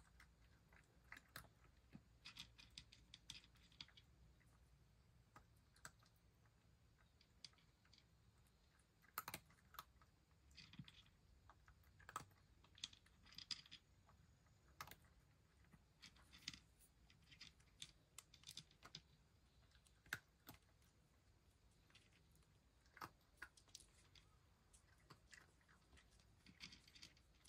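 Cat crunching dry kibble from a dish: faint, irregular crunching clicks that come in bunches of several at a time.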